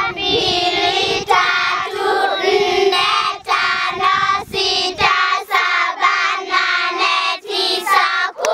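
A group of young schoolchildren singing together in unison, in short rhythmic phrases.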